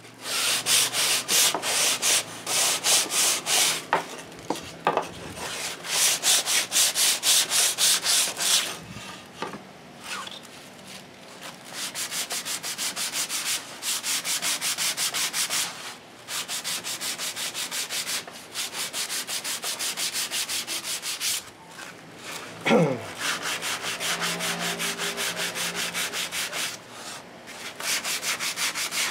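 Hand sanding of a small wooden board: sandpaper on a hand-held block rubbed back and forth in quick, rhythmic strokes, several a second, with short pauses. About three-quarters of the way in, a brief falling squeak is the loudest sound.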